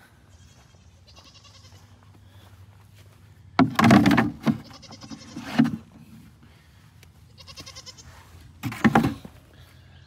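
Goats bleating: a few loud, harsh calls about a third of the way in and again near the end, with fainter bleats between them.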